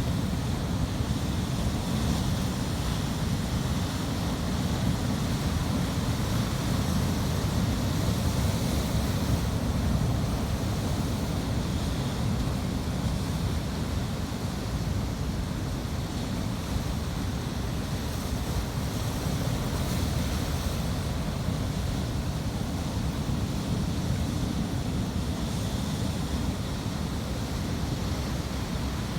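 Ocean surf: a steady rush of waves washing in, with no breaks and the wash swelling slightly about eight to ten seconds in.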